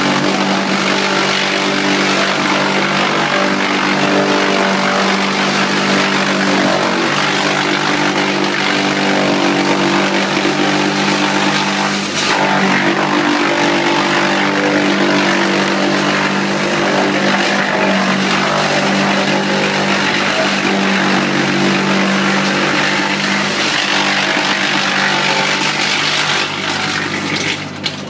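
Engine-driven wood chipper running steadily: an engine drone under a dense wash of noise, with a brief dip about twelve seconds in.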